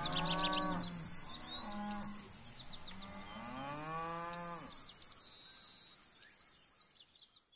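Black Angus cattle mooing: three long moos that rise and fall in pitch, with small birds chirping high above them. The sound fades out near the end.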